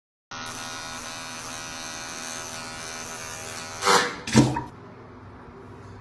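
Electric shaver buzzing steadily, broken about four seconds in by two short loud sounds, after which the buzz drops away.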